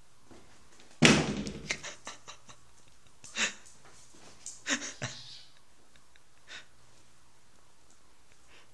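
A loud thump about a second in with a brief rattling decay, then softer knocks and scrabbles around three and a half and five seconds in: cats leaping and scrambling against a mattress leaned on the wall.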